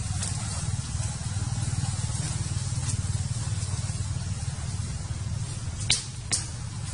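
A steady low rumble, with two sharp clicks close together near the end.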